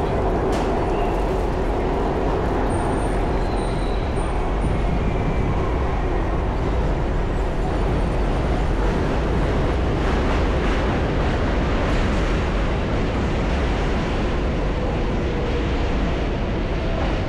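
Steady city street noise from traffic on a busy road, an even rumble with no distinct events.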